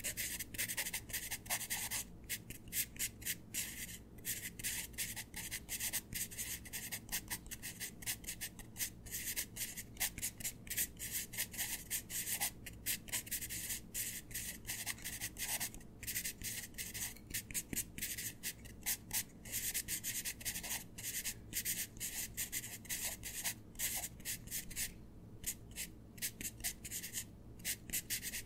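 Pencil writing on paper: a continuous run of short, quick scratchy strokes of graphite on paper, broken by brief pauses.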